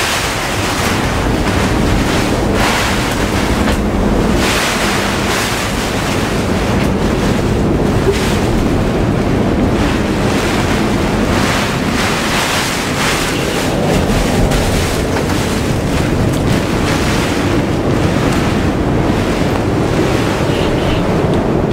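Cyclone-force wind and horizontal driving rain lashing a sailboat's canvas-and-vinyl cockpit enclosure: a loud, steady roar that swells with gusts every few seconds.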